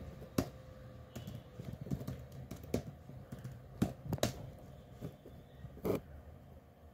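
Computer keyboard keys pressed one at a time at an uneven pace while a password is typed, with a few sharper clicks about four seconds in and again near six seconds.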